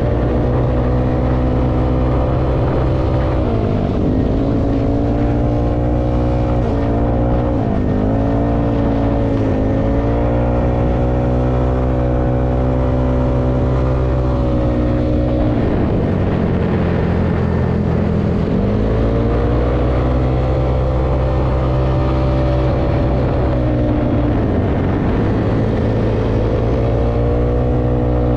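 195cc Yamaha Aerox scooter engine running steadily while riding. Its pitch drops and climbs back several times as the throttle is eased and reopened, with the longest dip between about sixteen and nineteen seconds in.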